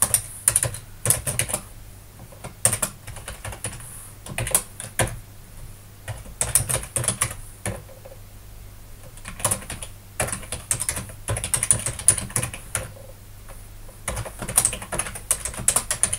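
Computer keyboard typing: quick runs of key clicks in several bursts, with short pauses between them, as terminal commands and a login are typed in.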